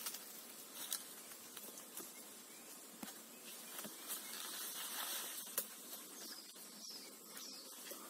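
Faint rustling of leaves and scattered sharp snaps and clicks of twigs as a man climbs down a tree, over a faint steady background of insects, with a few short high chirps near the end.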